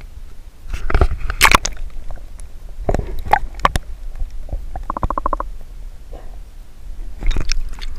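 Water in a brim-full plastic cooler sloshing and gurgling, with sharp knocks against the cooler's plastic and a short rapid rattle about five seconds in.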